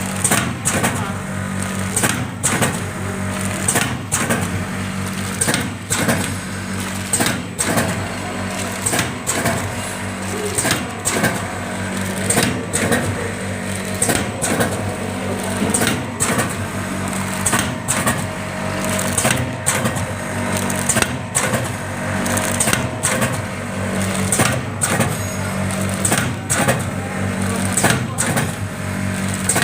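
Automatic powder sachet packing machine running: a steady motor hum with sharp mechanical clacks about once a second as it cycles.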